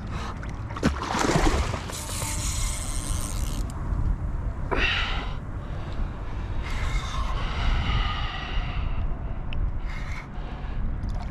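Wind buffeting the microphone as a steady low rumble, with several bursts of hiss, each one to two seconds long.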